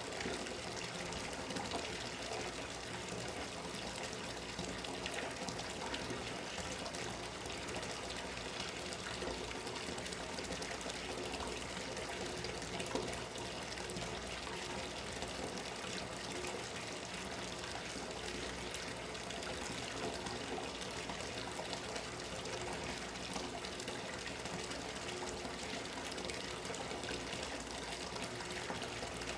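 Water running from a bathtub tap into the tub in a steady stream, filling it.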